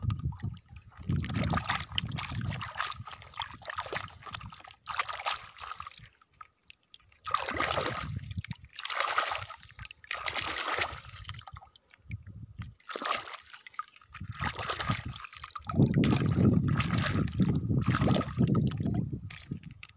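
Shallow muddy water splashing and sloshing as a toy car is pushed and swirled through it by hand, in irregular bursts, with a few seconds of heavier, deeper churning near the end.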